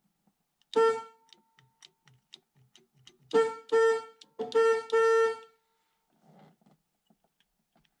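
1976 Chevrolet Camaro's car horn sounding in short honks as the horn button on a newly fitted aftermarket steering wheel is pressed to test it: one honk, then four more in quick succession a couple of seconds later, the last one longest. Small clicks of the horn button between the honks.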